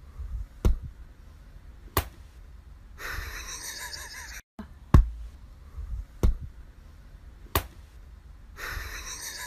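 About five short, sharp taps or thumps, irregularly spaced a second or more apart, with two stretches of soft rustling noise between them.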